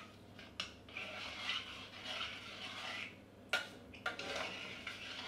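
A spoon stirring coconut milk and rice in a stainless steel saucepan: scraping around the pot, with a few sharp clinks against its side.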